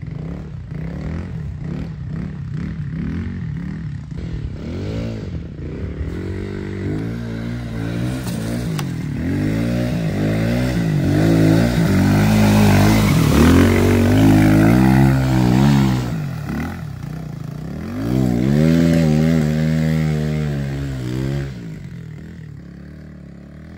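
Small dirt bike engine revving up and down as it is ridden through mud and water. It is loudest as it passes close by about halfway through, revs hard again a few seconds later, then fades as it rides away.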